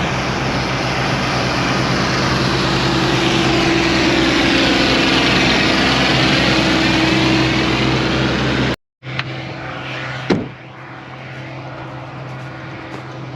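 Tractor engine running steadily under way while pulling wagons. About nine seconds in it cuts off suddenly to a quieter engine idling, with a single clunk about a second later.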